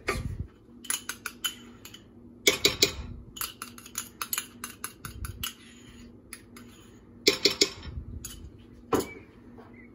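Metal pots and kitchen utensils clinking and knocking in scattered clusters of sharp strikes, as cheese sauce is scraped from a saucepan into a pot of cooked pasta and utensils are handled.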